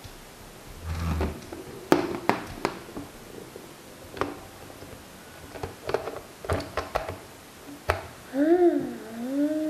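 Hard plastic clicks and knocks from a toy train locomotive being handled and fiddled with, irregular and sharp. A short wavering hum comes near the end.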